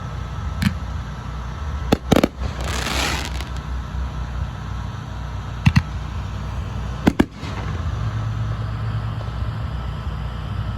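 Aerial fireworks going off: a series of sharp booming reports, several in quick pairs, with a stretch of hissing crackle about three seconds in.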